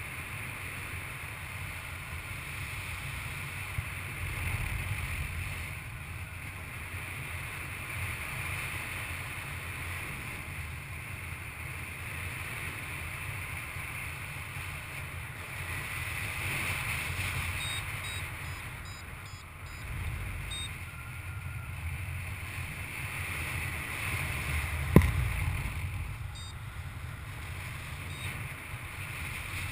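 Airflow buffeting the harness-mounted camera's microphone in flight under a paraglider, a steady rushing that swells and eases. A few faint short high beeps sound in two clusters in the second half, and a single sharp knock about 25 seconds in.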